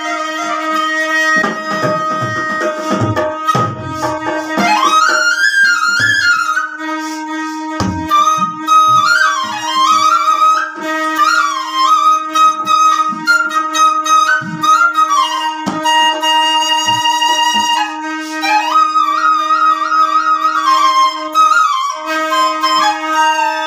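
Alghoza, the Sindhi double flute, played as a folk tune: one pipe holds a steady drone while the other plays a winding melody above it. The drone breaks off for a moment near the end and comes straight back.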